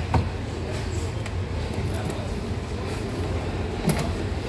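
A plastic hard-case latch clicks right at the start, and another click with a short knock comes near the end, over a steady low rumble.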